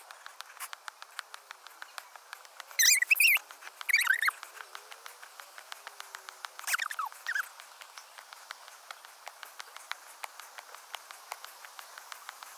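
Sped-up footsteps on a walk up stone steps, heard as a rapid run of even ticks, about three a second. There are brief high squeaky chirps about three, four and seven seconds in.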